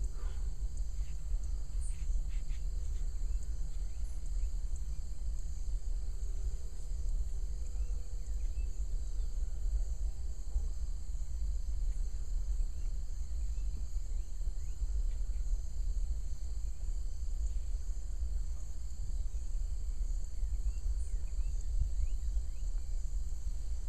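Steady chorus of insects, a continuous high buzz, over a low steady rumble.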